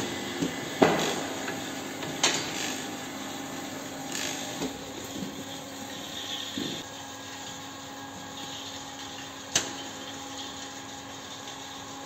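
Sharp metallic knocks and clanks from a cattle hoof-trimming crate, over a steady mechanical hum. The loudest knock comes about a second in, another just after two seconds and one more late on.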